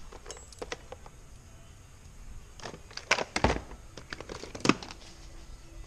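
A yellow plastic toolbox being opened and a hand rummaging through the metal hand tools inside: scattered clicks and clatters, the loudest a quick cluster about three seconds in and a sharp one just before five seconds.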